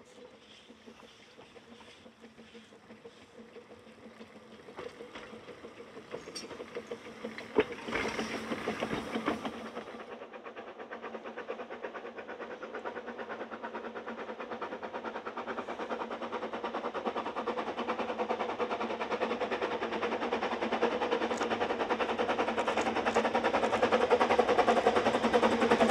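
Narrow-gauge steam locomotive working a train, its fast exhaust beats growing steadily louder as it approaches, with a sharp bang about eight seconds in.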